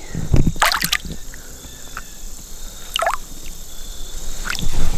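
Creek water splashing and dripping in a few short bursts, about half a second in, near three seconds and near the end, as a just-caught smallmouth bass is handled at the water's surface.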